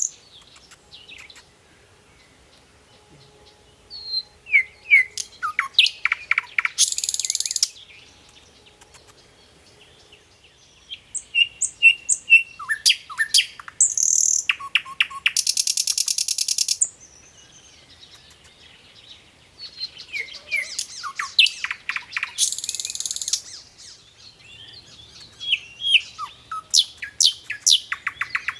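A songbird singing repeated song phrases, one every seven or eight seconds with quiet gaps between them. Each phrase is a run of quick, sliding whistled notes ending in a high, buzzy trill.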